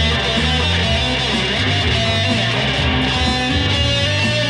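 Electric guitar played through an amplifier, a continuous run of sustained notes.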